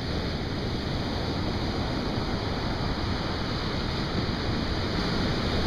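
Big Atlantic surf breaking and washing up the beach: a steady rush of waves with no lulls, growing slightly louder near the end.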